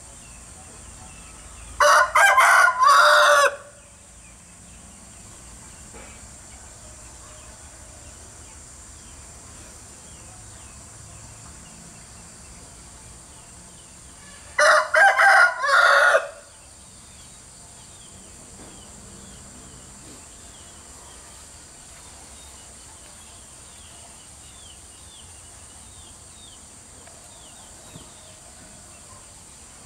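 Two loud animal calls about twelve seconds apart, each about one and a half seconds long and broken into several pitched notes, over steady background noise.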